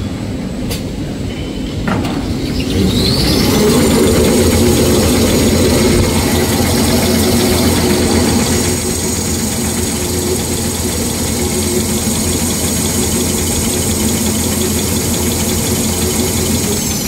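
Jumbo-roll (maxi roll) toilet tissue rewinding machine running with a steady low hum and roller rattle. A high whine rises about three seconds in as the machine speeds up, holds steady, and falls away near the end as it slows.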